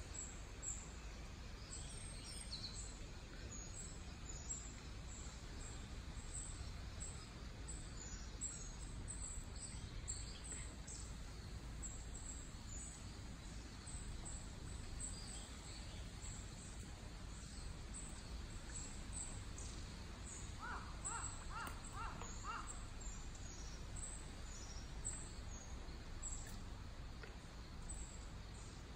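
Outdoor ambience: a steady low rumble with small high chirps repeating throughout. About two-thirds of the way through, a bird calls about five times in quick succession.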